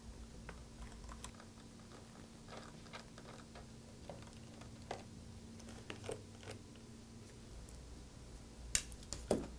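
Faint scattered ticks and clicks of a Phillips 00 precision screwdriver turning out the small screws of a MacBook Pro's aluminium lower case, with a few louder clicks near the end.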